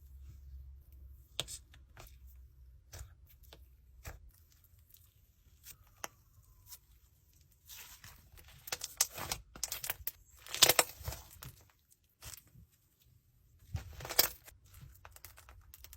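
Scattered crinkling, tearing and clicking handling noises, louder in bursts about nine to eleven seconds in and again near fourteen seconds.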